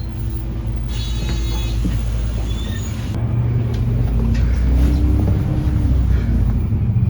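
City bus ride heard from inside: a steady low engine and road rumble that swells slightly partway through, with faint higher rattles and tones above it, and cuts off abruptly at the end.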